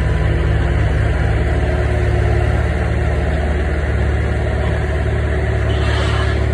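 Skid-steer loader's diesel engine running steadily at working speed as the machine manoeuvres with its forks. A short rushing noise comes in near the end.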